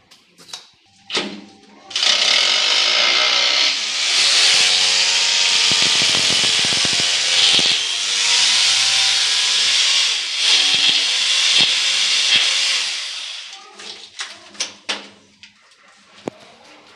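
Electric rotary hammer drill drilling into the side of a uPVC window frame. It runs steadily for about eleven seconds from about two seconds in, then winds down, with a few light knocks before and after.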